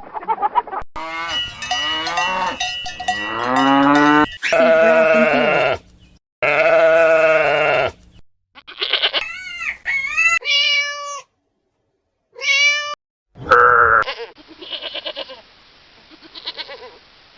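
A run of different farm-animal calls spliced together, each cut off suddenly with brief silent gaps between: a few long pitched calls, then shorter bleat-like calls, then a noisier stretch near the end.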